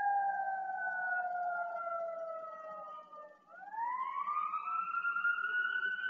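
Fire brigade siren wailing as a fire alarm call-out: its pitch falls slowly for about three seconds, breaks off briefly, then winds back up and holds high.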